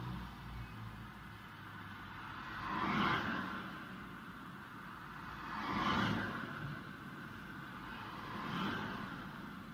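Road traffic: three cars pass one after another, each a tyre-and-engine whoosh that swells and fades, about three seconds apart. The third pass is the faintest.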